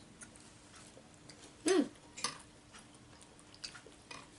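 Quiet eating sounds: scattered light clicks and smacks of a spoon and mouth, with one short falling-pitch squeak about 1.7 seconds in.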